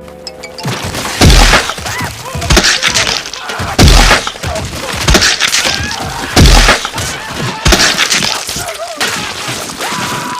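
Cartoon sound effects of heavy crashes with breaking-glass shatter, one about every second and a quarter, with short high wavering cries between them.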